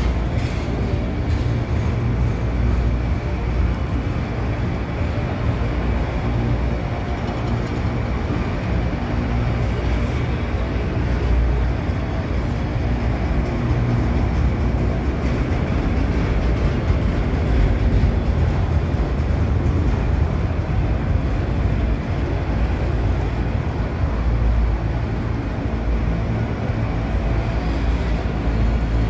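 Freight train of enclosed autorack cars rolling past, a steady low rumble of steel wheels on rail.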